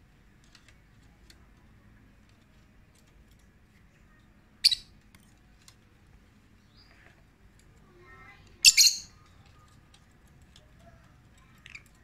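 Rosy-faced lovebirds calling: two loud, sharp calls about four seconds apart, the second one doubled, with faint chirps and small ticks between them and a quieter call near the end.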